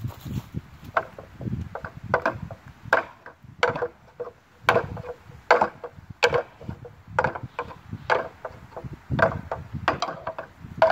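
Hand-held rings knocking against the wooden pegs and frame of a rig obstacle as a climber swings along it, hooking a ring onto the next peg with each swing. About a dozen hollow clacks, each with a short ring, roughly one a second.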